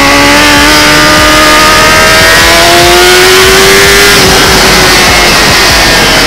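Kawasaki ZX-10R race bike's inline-four engine accelerating, its note rising steadily in pitch over a heavy rush of wind on the onboard microphone; about four seconds in the engine note sinks under the wind noise.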